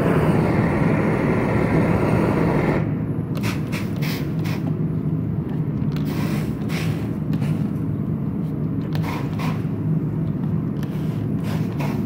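Gas torch burning with a steady rush and low hum as it heats a bronze bust for a hot patina; about three seconds in the sound drops and turns darker. After that comes a series of short hisses as the ferric nitrate patina solution is sprayed onto the hot bronze and flashes to steam.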